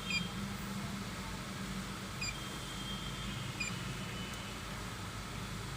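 Skoda Laura TSI petrol engine idling steadily, not cutting out now that the faulty fuel pump control module has been replaced. Three short high chirps sound over the idle.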